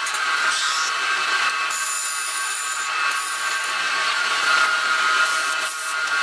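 Wood lathe running with a vase-shaped turning spinning on it, giving a steady whine with a hiss above it.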